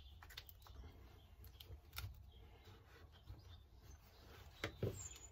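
Quiet handling sounds: a few faint taps and rustles as a dibber is pushed into firmed compost in a plastic seed-cell tray.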